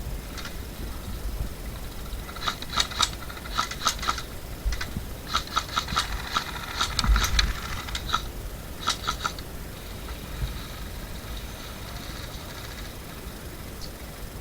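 Airsoft guns firing in short strings of sharp clicks, several volleys between about two and nine seconds in, over a low rumble.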